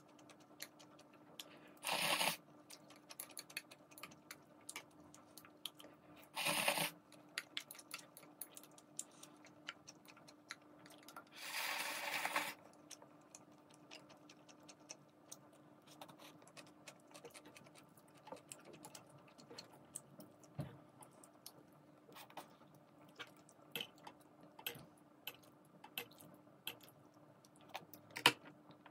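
Three slurps of instant ramen noodles, the last about a second long, with light clicks of chopsticks and chewing in between.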